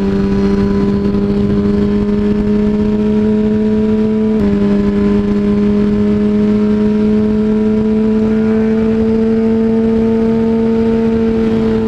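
2007 Yamaha R1's inline-four engine running at a steady mid-rev cruise, its pitch climbing slowly. There is a brief small dip about four and a half seconds in. Wind noise rushes on the helmet microphone underneath.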